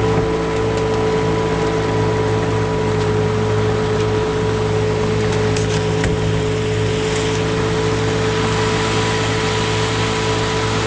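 1974 Johnson 6 hp two-stroke outboard motor running steadily at a constant pitch, pushing a small boat along.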